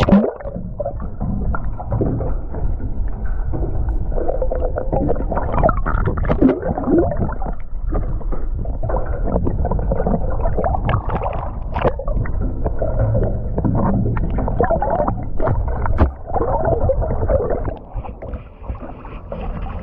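Water sloshing and gurgling around a small fishing boat, with scattered knocks and bumps.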